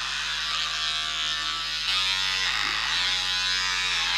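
Electric hair clipper buzzing steadily as it cuts through long, thick hair, getting a little louder about two seconds in.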